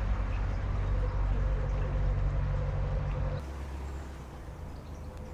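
Narrowboat's diesel engine running steadily at low cruising revs, a low rumble. A little over three seconds in the sound changes abruptly and becomes quieter.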